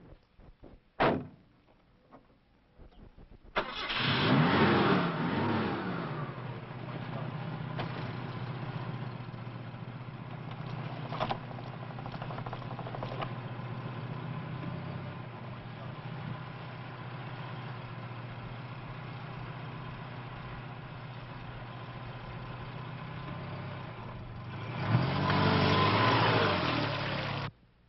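A car engine starting about three and a half seconds in with a brief rev that falls back, then idling steadily. Near the end it revs up again, then cuts off suddenly. A single sharp click comes about a second in.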